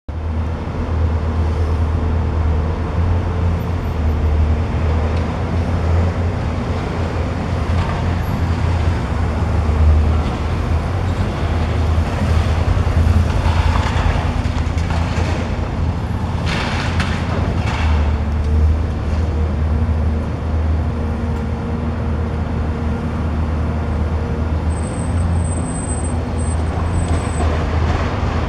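Demolition excavator's diesel engine running steadily under load while its long-reach arm tears at a masonry house wall. Brief crunches and falling rubble break through about halfway in.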